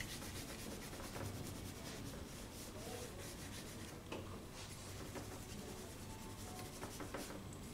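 Faint scratchy rubbing of charcoal being stroked and worked across drawing paper, with a few small ticks of the stick on the sheet.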